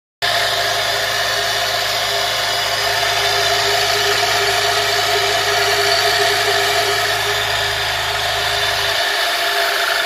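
Homemade air compressor running steadily: an electric motor drives a refrigerator compressor head through a V-belt and pulleys, giving a loud, even mechanical hum. The deepest part of the hum drops away about nine seconds in.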